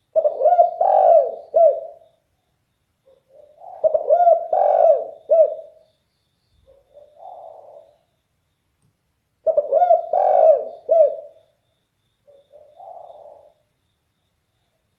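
Spotted dove (derkuku) cooing in a deep, very loud voice: three cooing phrases a few seconds apart, each a quick run of several notes. The second and third are each followed by a softer, breathier note.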